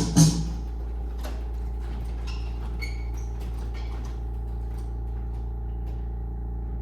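Band music ends with a last drum hit about half a second in, leaving a steady low electrical hum with a few faint clicks and short high blips.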